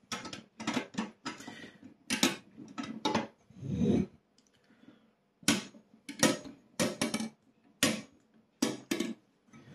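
Metal paddles of a powder-coated biathlon-style airgun target clacking and clicking as they are handled and knocked down, giving a run of sharp, irregular metallic clicks. There is a duller thump about four seconds in.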